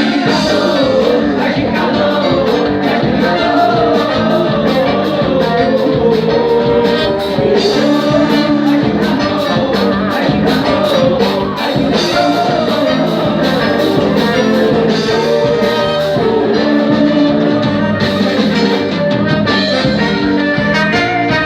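Band music with a singer over guitar and a steady percussion beat, loud and continuous.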